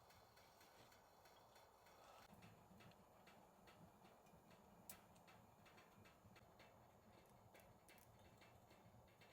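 Faint, irregular clicking and ticking over near silence, with one sharper click about five seconds in.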